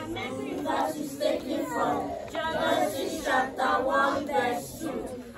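A group of children singing together unaccompanied, in a choir-like unison.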